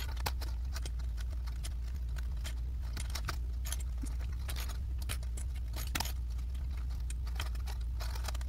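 Small plastic sewing clips clicking and rattling against each other and the tabletop in irregular clicks as a clipped vinyl-and-cotton handle is lifted and the clips are adjusted, over a steady low hum.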